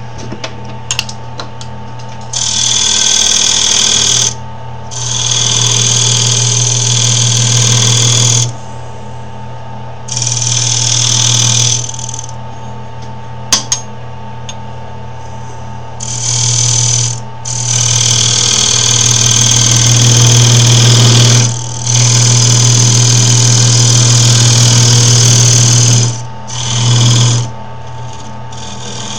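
Wood lathe running with a steady hum while a hand turning tool cuts into the spinning wood in about seven passes lasting one to four seconds each, hollowing a recess to an even depth.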